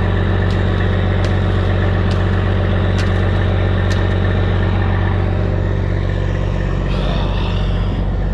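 Heavy diesel engine idling steadily, with a few sharp clicks about once a second during the first four seconds.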